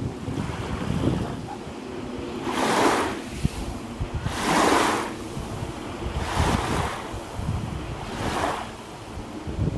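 Small waves washing on a lakeshore, four swells of wash about two seconds apart, over a steady rumble of wind on the microphone.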